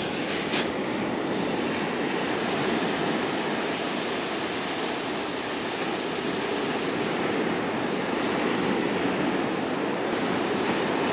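Ocean surf on a sandy beach: a steady rush of breaking waves that swells and eases slightly.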